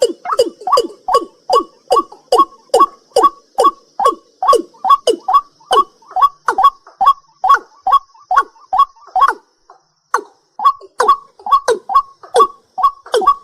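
A night bird calling a long, fast series of short, clipped notes, each one sliding down in pitch, about three a second, with a brief pause about two-thirds of the way through. A faint, steady, high-pitched hiss runs underneath.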